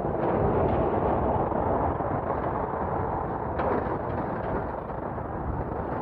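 Wind buffeting the Insta360 camera's microphone on a moving bicycle: a steady, loud rushing noise with a couple of brief knocks.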